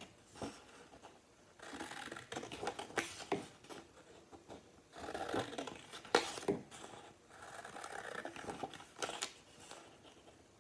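Scissors cutting paper in three runs of quick snips, each about two seconds long, with short pauses between them.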